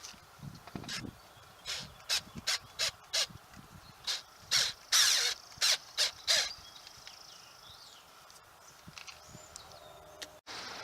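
A bird calling: about a dozen short, harsh calls in an uneven series, then it goes quieter for the last few seconds.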